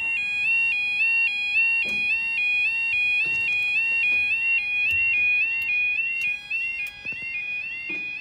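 Level crossing warning alarm sounding a continuous two-tone yodel that steps between a higher and a lower pitch about twice a second, warning of an approaching train as the barriers lower. A few short knocks sound over it.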